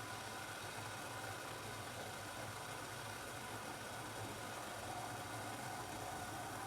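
Steady low machine hum with a faint whine and an even hiss from the kitchen, while a pot of dark beer heats on the stove, not yet simmering.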